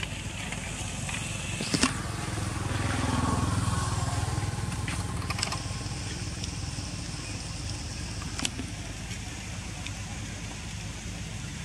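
Low steady rumble of a motor vehicle running nearby, growing louder about three seconds in and then easing off, with a few sharp clicks.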